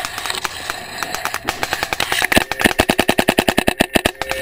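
Planet Eclipse Etek 4 electronic paintball marker firing a rapid string of shots, more than ten a second, louder and sharper from about halfway in.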